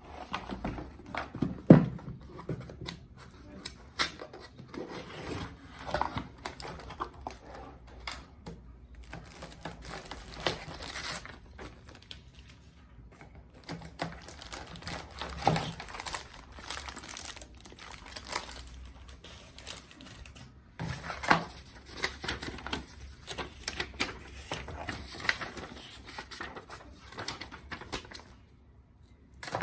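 Keyboard packaging being handled: plastic wrap crinkling and tearing, with irregular clicks and knocks.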